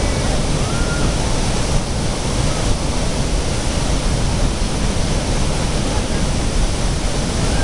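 Bridal Veil Falls at Niagara crashing down close by: a loud, steady, unbroken roar of falling water and spray.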